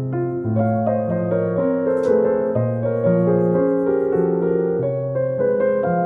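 Background piano music, with a low bass note changing about once a second under higher melody notes.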